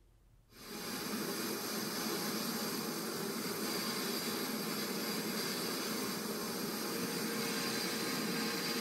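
Sandblast gun in a blast cabinet starting up about half a second in and then running steadily: a continuous hiss of compressed air and abrasive stripping rust from an antique slicer blade.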